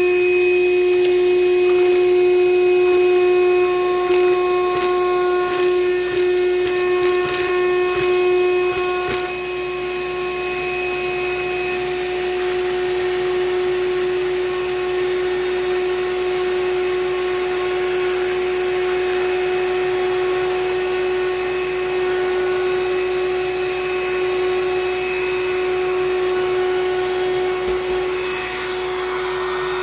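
Black & Decker Dustbuster cordless handheld vacuum running with a steady high whine, sucking up dry cereal: pieces rattle and click through the nozzle for the first several seconds, then the rattling stops and the sound settles a little lower as the intake jams with cereal.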